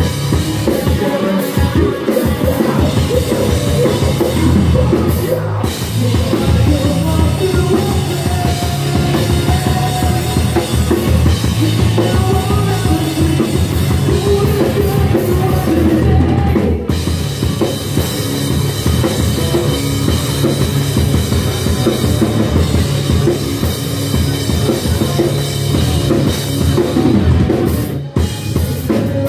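Live rock band playing loud through a club PA: a driving drum kit with a steady bass drum, electric guitar, and a singer's vocal.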